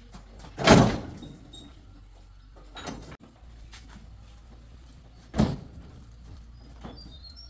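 Two loud bangs, about four and a half seconds apart, with fainter knocks between them over a low steady hum.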